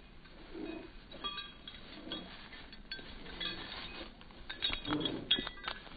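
Metal tags on goldendoodles' collars jingling and clinking as the dogs run and play. The clinking comes in scattered short bursts and is thickest and loudest near the end.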